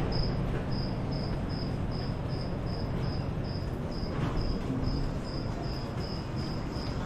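An insect chirping steadily: a short, high chirp at one pitch, repeated evenly about two and a half times a second, over steady low background noise.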